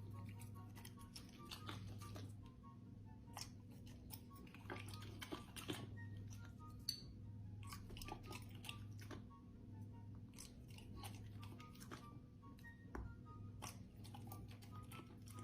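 A pet chewing and crunching food, a quiet run of many short crunches, with soft music underneath.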